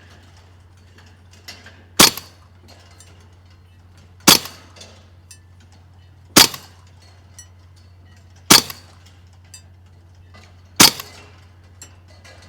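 Karma SLS .22 PCP air rifle firing five shots in semi-auto, one sharp crack about every two seconds, each with a short tail. A faint steady low hum runs underneath.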